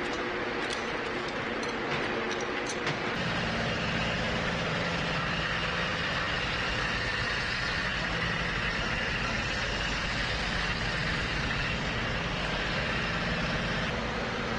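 A heavy vehicle's engine running steadily at idle, getting a little louder about three seconds in, with a few sharp clicks before that.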